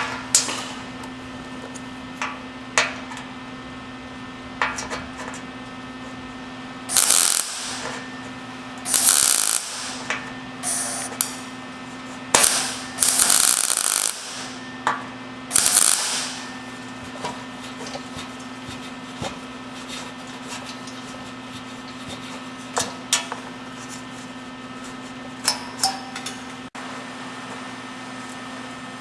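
Arc welding: several short bursts of crackling arc, each a second or so long, with longer ones in the middle, laid as stitch welds over a steady electrical hum from the welder.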